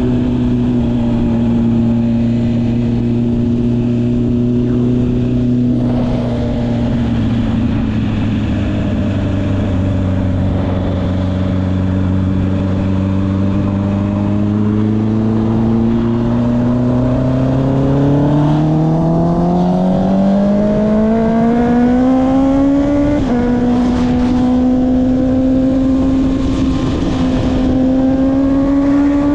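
Honda CB650R's inline-four engine running through an Akrapovic exhaust while riding. The note holds steady, eases down a little, then climbs steadily under acceleration for several seconds and drops sharply at an upshift about two-thirds of the way in, before holding steady and creeping up again.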